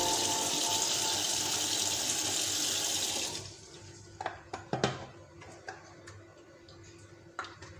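Water running steadily while a washing machine tub is rinsed, cut off about three seconds in. A few light knocks and clicks follow.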